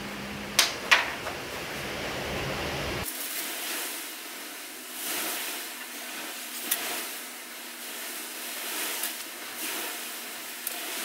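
Hand rubbing and smudging paint on a stretched canvas: soft swishing strokes over a steady hiss, with two light clicks about half a second apart near the start.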